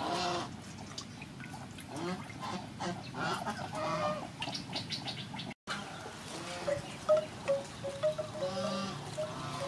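Domestic waterfowl calling repeatedly in the background, with a run of short, even, clear notes in the second half.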